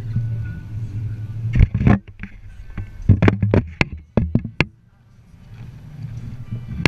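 A quick run of sharp knocks and clacks as the camera is grabbed and moved by hand. Underneath is a steady low rumble that drops away briefly about five seconds in and then returns.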